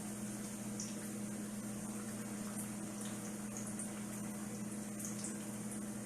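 Beer-battered chicken deep-frying in hot oil: a steady sizzle with small crackles, over a low steady hum.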